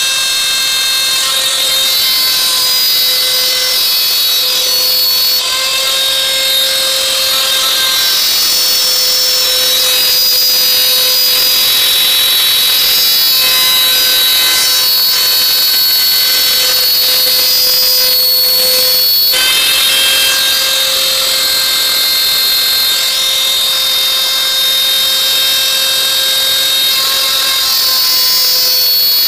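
INGCO router, mounted as a CNC spindle, running at high speed with its small bit cutting 4 mm Alucobond aluminium composite panel: a steady high whine with cutting noise, its pitch shifting slightly a few times as the load changes.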